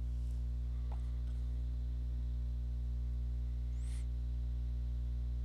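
Steady low electrical hum in the recording, with a faint click about a second in.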